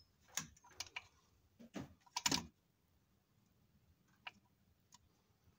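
Irregular light clicks and taps: several in the first two and a half seconds, the loudest about two and a half seconds in, then a couple of faint ticks near the end.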